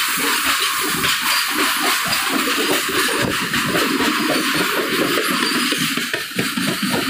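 Steady rushing running noise of a moving passenger train heard from its open doorway: wheels on the rails and a rush of air, even in level throughout.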